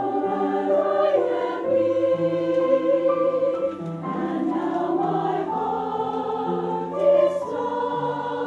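Mixed amateur choir singing in parts, a cappella, held notes moving in steps.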